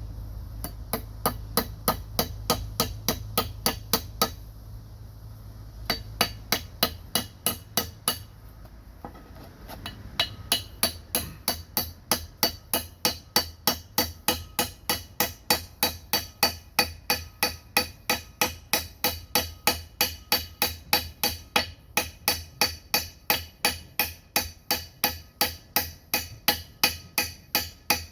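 Hammer blows driving a brass .45 bullet casing into the top of an axe handle as a decorative wedge: sharp, ringing strikes about three a second, with two short pauses in the first ten seconds and then without a break. A low hum runs under the first several seconds.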